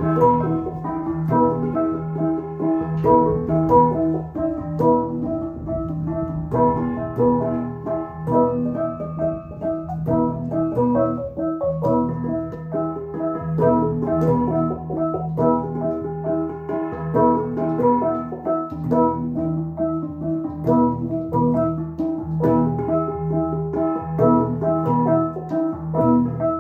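Central Highlands cồng chiêng gong ensemble playing: tuned gongs struck in a repeating rhythmic pattern, their pitched tones ringing and overlapping.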